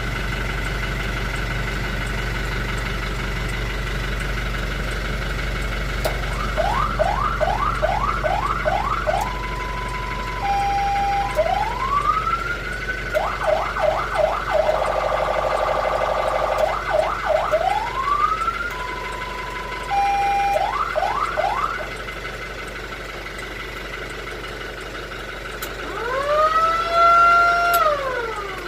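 Fire truck's electronic siren cycling through its patterns: about six seconds in it starts a run of fast rising yelps, then short steady and two-step tones, a slow rising wail and a harsh buzzing horn tone, and near the end a wail that rises, holds and falls away. A steady low rumble runs underneath.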